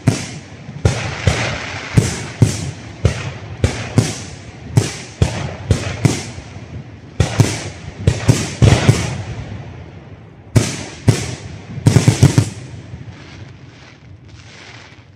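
Aerial firework shells bursting in a steady volley: sharp bangs from a fraction of a second to a second apart, with a hiss between them. A rapid cluster of bangs comes about twelve seconds in, then the bangs thin out and grow fainter as the volley dies away.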